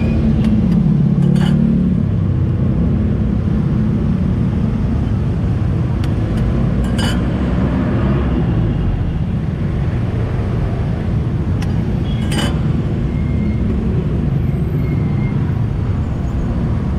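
Steady low rumble of street traffic, with a few sharp clicks as eggs are cracked over the griddle.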